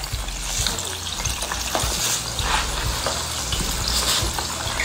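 Chicken deep-frying in a pot of hot oil, sizzling and crackling steadily.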